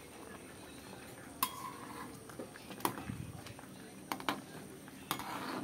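Metal ladle stirring curry in an aluminium wok, knocking and clinking against the pan several times, the first clink about a second and a half in with a brief ring.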